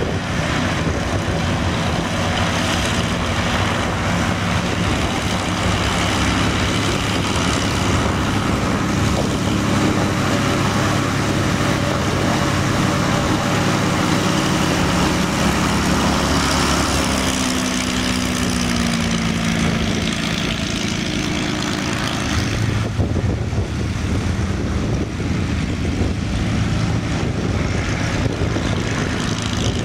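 Messerschmitt Bf 109's Daimler-Benz DB 601 inverted V12 engine running on the ground with its propeller turning, a loud steady drone. About two-thirds of the way through the engine note dips in pitch, and shortly after the sound turns duller.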